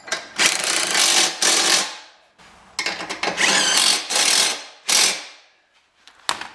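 Cordless impact driver with a socket running a bolt on a mower deck's lift arm bracket, hammering in two long bursts of under two seconds each and a short burst about five seconds in, followed by a couple of clicks.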